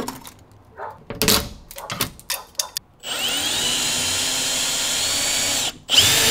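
Power drill working a screw: a few knocks and clicks, then about three seconds in the drill spins up and runs steadily, stops briefly near the end and starts again. The screw turns out to be stripped.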